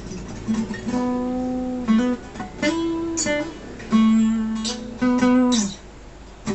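Acoustic guitar playing a short phrase of strummed chords and picked notes, each attack ringing on; the playing stops about a second before the end.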